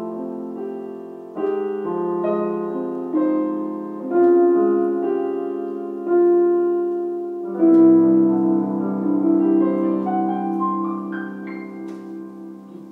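Solo piano playing a slow, calm piece: chords struck every second or two, then a long chord about two thirds of the way through left to ring and fade, with a few high notes over it.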